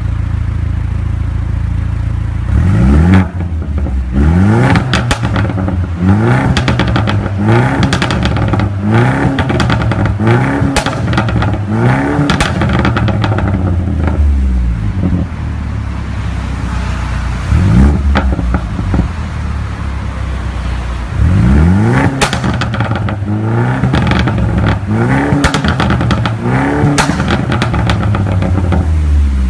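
Mercedes-Benz C250 (W205) coupe's turbocharged four-cylinder engine through an Armytrix aftermarket exhaust, idling and then blipped in quick rev bursts, about one a second. Sharp crackles and pops come on the overrun, helped by a Stage 2 tune. There are two long runs of blips and one single blip in between, with steady idle between them.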